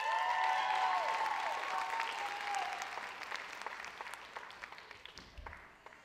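Audience applauding and cheering, with high sustained cheers in the first few seconds. The applause thins to scattered claps and fades toward the end.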